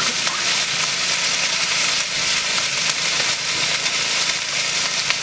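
Food frying in hot oil in a large iron wok (kadai), a steady sizzle.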